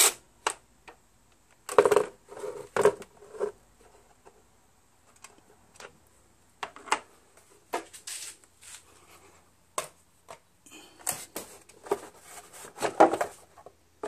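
Scattered clicks, knocks and clatter of bolts and the top engine cover of a Kohler Courage 21 HP engine being handled and lifted off, busiest a couple of seconds in and again near the end.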